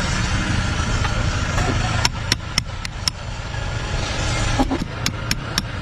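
Steady low rumble like a running engine or nearby traffic, with two quick runs of sharp clicks or taps, the first about two seconds in and the second near the end.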